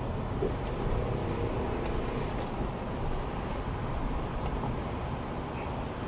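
Steady road and engine noise of a car driving along a street.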